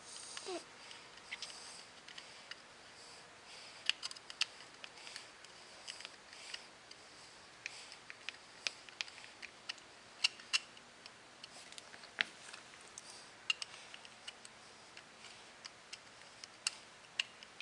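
Faint, irregular metal clicks and ticks of a screwdriver turning a grip frame screw into the butt of a Colt Single Action Army revolver's grip frame, as the screw is driven home.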